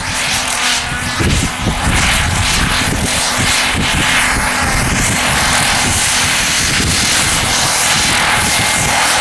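Radio-controlled scale model Rotortec LongRanger helicopter flying low, its engine and rotor blades running with a steady, loud rushing whine.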